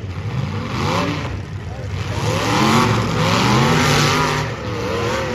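Demolition derby car engines revving hard, their pitch repeatedly climbing and dropping as the cars push and ram.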